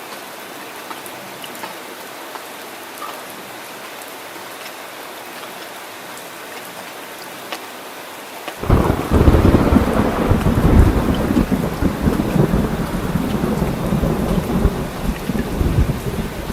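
Steady rain hiss, then about halfway through a rumble of thunder starts suddenly and rolls on over heavier rain.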